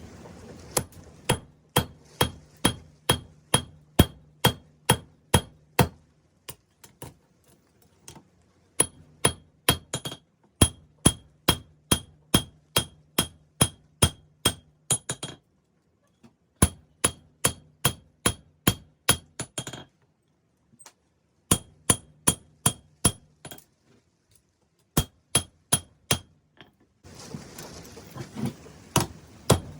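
Hammer blows on hot 5160 steel over an anvil, drawing out a knife blank. The blows come in runs of about two to three a second, each with a bright metallic ring, with short pauses between runs. A steady rushing noise comes in near the end.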